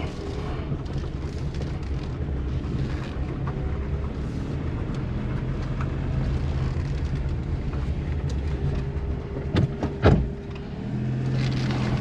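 Suzuki Kei Works' small three-cylinder 660 cc turbo engine running steadily at low speed as the car creeps along, with no deep rumble from the drivetrain: the noise appears cured by the newly replaced viscous coupling. Two short knocks come about ten seconds in.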